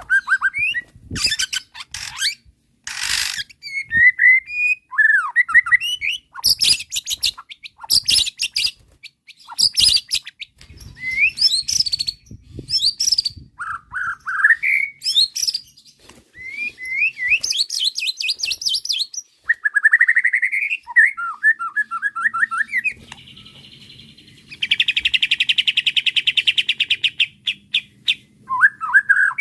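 White-rumped shama (murai batu) singing a varied song: rising and falling whistles between sharp chattering phrases, then a long fast buzzing trill near the end.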